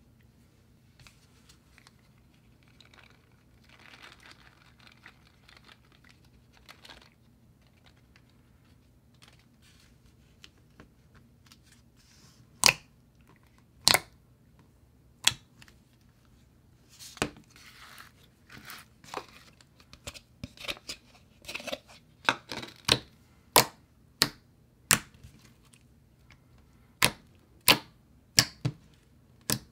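Soft, clicky slime being poked and pressed by fingers. First a faint squishy rustle, then sharp clicks and pops, at first a second or more apart and about two a second toward the end.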